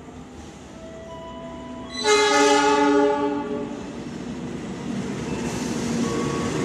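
CC 206 diesel-electric locomotive sounding its horn in one blast of about a second and a half, starting about two seconds in. The rumble of the locomotive and its coaches then grows louder as the train runs through the station without stopping.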